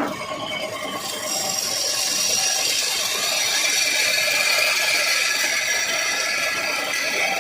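Wood lathe spinning a wooden workpiece while a turning chisel cuts it, a steady high-pitched scraping whine that gets louder about a second in as the tool bites.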